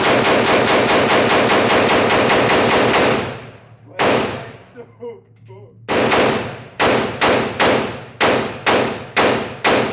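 Rapid gunfire: a very fast string of about twenty shots over the first three seconds, a single shot about a second later, then a steadier string of about ten shots at roughly three a second.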